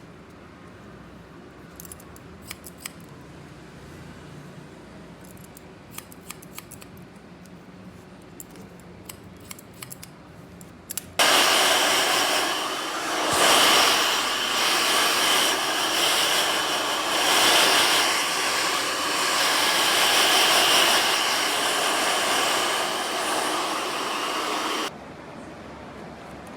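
Scissors snipping in scattered sharp clicks for about the first eleven seconds. Then a loud, steady rushing machine noise starts suddenly, runs for about fourteen seconds and stops abruptly near the end.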